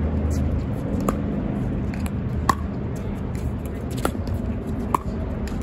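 A pickleball rally: about five sharp pops of paddles striking the plastic ball and the ball bouncing, spaced roughly half a second to a second and a half apart. Wind rumbles on the microphone underneath.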